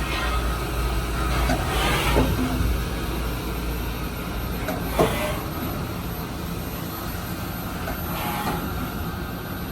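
Haas VF-4 vertical machining center running under power: a steady low hum with a few brief whooshes and one sharp click about five seconds in.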